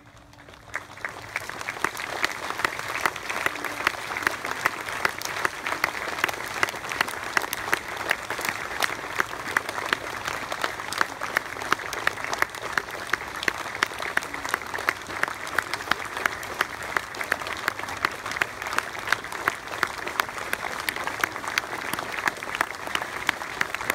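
A crowd applauding, swelling up about a second in and going on steadily, with sharp nearby claps standing out about twice a second.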